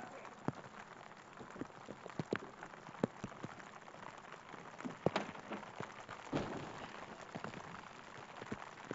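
Rain falling steadily, with scattered individual drops and drips ticking on nearby surfaces.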